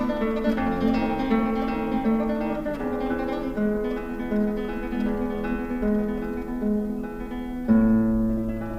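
Instrumental background music: a melody of held, plucked-sounding notes over a lower bass line, with a louder new bass note coming in near the end.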